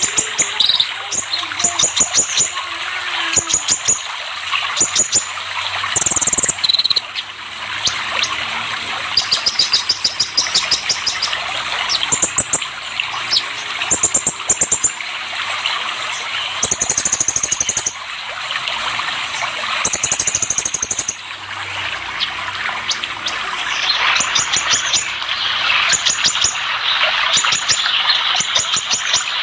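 Kolibri ninja sunbird song: short bursts of rapid, high, thin chirps repeated every second or two, over a steady rush of running water.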